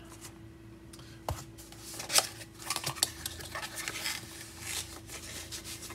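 Hard plastic graded-card slabs and their packaging being handled: a few sharp plastic clacks, the loudest about two seconds in, followed by a run of rustling and crinkling.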